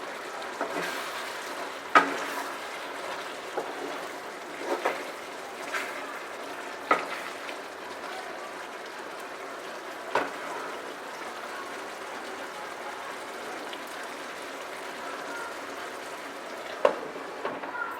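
Chicken masala cooking in a pan with a steady hiss, and a spoon knocking against the pan now and then, about seven times.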